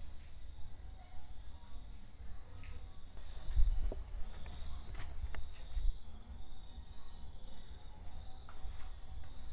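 A cricket chirping steadily, a high, evenly pulsed trill, over a low rumble from the handheld camera, with a couple of dull thumps about four and six seconds in.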